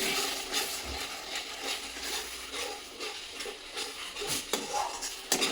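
Chicken and masala sizzling in a frying pan, a steady hiss, with a few light knocks of a stirring utensil.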